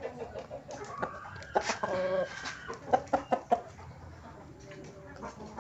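Chicken clucking in short calls, with a few sharp clicks a little after the middle.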